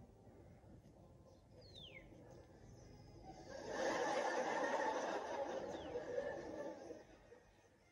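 Studio audience laughter heard from a television's speaker: a swell of laughter starts about three and a half seconds in, lasts some three seconds and fades away.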